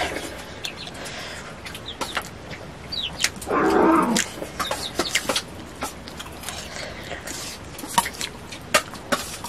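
A chicken clucking, loudest about three and a half seconds in, over scattered clicks and clinks of a spoon against a metal dish as someone eats rice.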